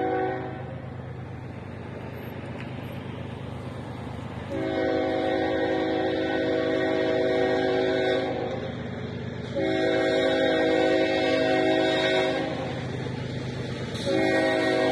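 Locomotive horn sounding a chord of several notes in the grade-crossing warning pattern. The tail of one blast ends just after the start, two long blasts of about three and a half and three seconds follow, and a short blast comes near the end. A steady low rumble of the train runs under the blasts.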